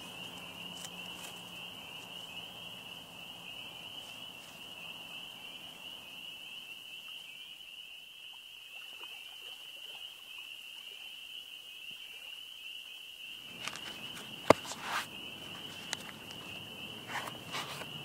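Steady high-pitched chirring of insects, a continuous trill. In the last few seconds there are a few knocks and soft thuds, with one sharp click among them.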